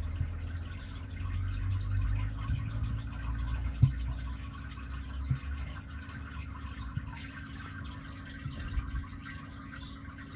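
Water trickling and splashing steadily into a turtle tank from the filter outflow, over a low steady hum, with a couple of soft knocks about four and five seconds in.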